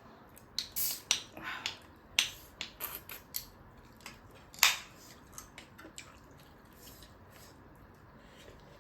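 Close-miked eating sounds: a run of crisp, crackling crunches and mouth clicks as crunchy food is bitten and chewed. They are densest in the first half, with the loudest crunch a little past the middle, and then thin out to a few faint clicks.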